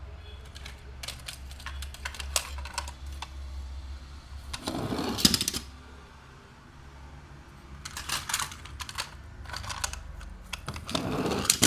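Small toy cars and plastic pieces being handled, giving a string of light clicks and taps, with two louder scraping sounds of about a second each, about five and eleven seconds in.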